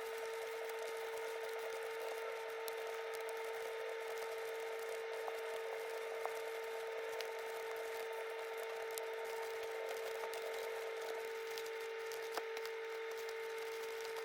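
A steady hum with a constant tone and an even hiss, with a few faint clicks scattered through it.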